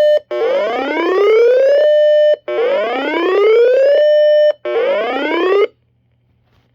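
Siren-like electronic alert tone broadcast over FM radio, announcing a severe thunderstorm warning: a whoop that rises in pitch, then holds steady and cuts off sharply, repeated three times, the last one cut short.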